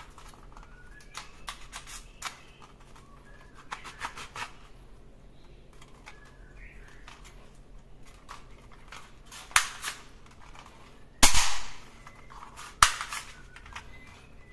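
Plastic toy sniper rifle being handled: scattered light clicks and rattles of its magazine and fittings, then a few louder sharp snaps in the last five seconds, the loudest about three seconds before the end.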